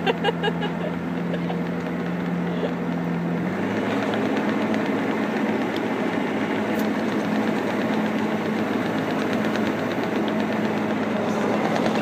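Bobcat skid steer's diesel engine running, heard from inside the cab; its steady hum steps up to a higher engine speed about three and a half seconds in and holds there. A child laughs briefly at the very start.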